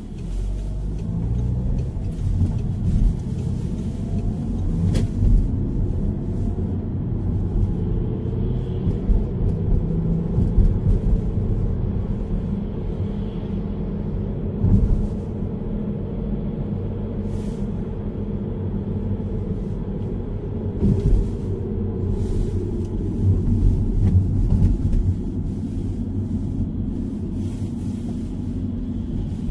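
Car engine and road noise heard from inside the cabin while driving, a steady low rumble. It grows louder near the start as the car pulls away from a junction.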